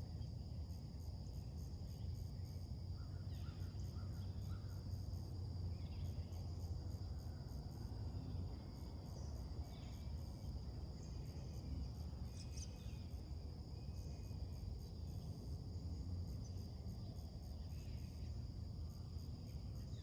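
Late-summer insect chorus of crickets, with a steady high trill and a faster pulsing very high buzz, over a steady low rumble. A few short bird chirps come through now and then, a little more often in the middle.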